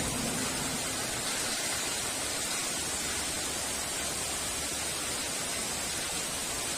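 Heavy rain falling in a steady hiss, with the last of a thunder rumble dying away at the very start.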